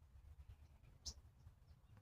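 A single short, high-pitched animal chirp about a second in, faint over a steady low hum.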